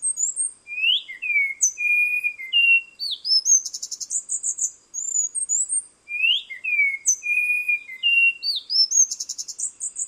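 Spot-winged thrush singing: a phrase of varied clear whistles and quick trills, starting low and climbing to high thin notes, sung twice.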